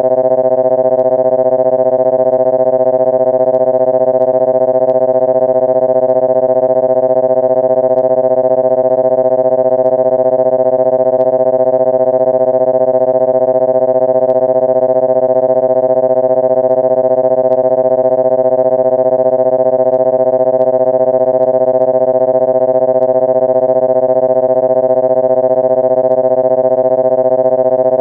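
Cartoon sound effect: one steady synthesized tone, rich in overtones, held at the same pitch without any change.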